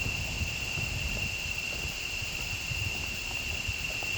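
A steady, high-pitched insect drone, like cicadas or crickets, over the low, irregular thuds of footsteps on the trail.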